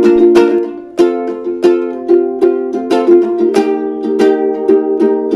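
Intro music: strummed and plucked ukulele chords in a steady, upbeat rhythm.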